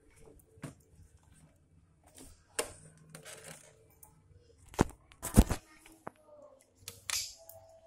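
Handling noise from a handheld camera being moved around: scattered rustles and clicks, a sharp knock about five seconds in and a louder cluster of knocks just after it.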